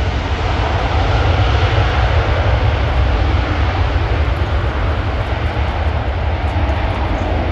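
Loud, steady engine noise from an airplane close by, with a deep rumble.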